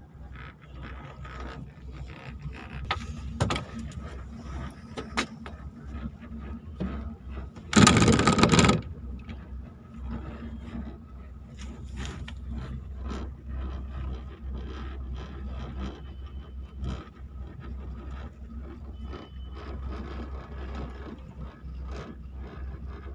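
Ropeway cable car cabin in motion: a steady low rumble with scattered clicks and rattles, and a loud clattering rush lasting about a second, some eight seconds in, as the cabin passes over a support tower's rollers.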